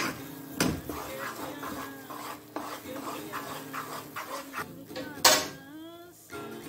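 Wooden spoon stirring thick moong dal halwa in a nonstick pan, scraping and knocking against the pan, with a sharp knock under a second in and a louder one about five seconds in.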